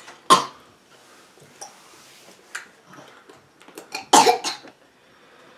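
Young child coughing at the taste of a lawn-clippings-flavoured Bean Boozled jelly bean: one cough just after the start and a burst of coughs about four seconds in, with softer sounds between.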